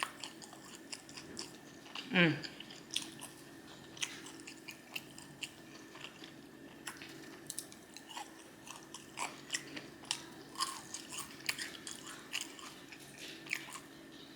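Close-miked chewing and biting of Raising Cane's Texas toast, a run of small wet clicks and soft crunches. About two seconds in comes one short vocal sound falling in pitch, the loudest moment.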